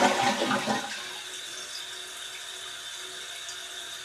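Toilet flush rushing down and dying away in about the first second, then the new fill valve hissing steadily with a faint high whistle as it refills the tank.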